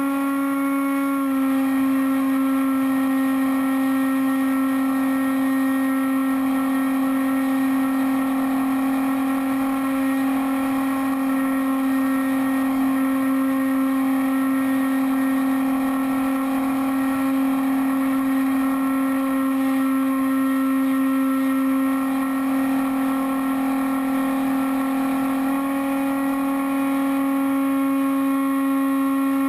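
Electric motor and pusher propeller of a Bixler foam RC plane running at steady cruise throttle, a steady whine. The pitch drops slightly about a second in and rises a little near the end as the throttle changes.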